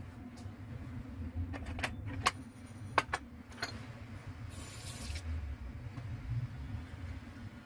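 A lemon rolled and pressed under the palm on a board and then set down, giving a handful of light knocks and taps in the first half over a steady low hum. A brief hiss comes about five seconds in.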